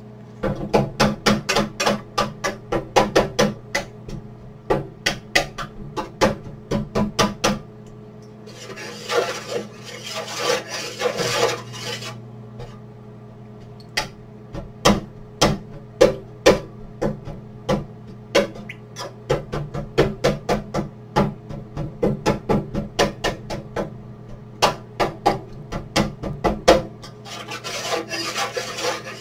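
Kitchen knife chopping on a wooden cutting board in quick, even strokes of about three a second, with two spells of scraping across the board, over a steady low hum.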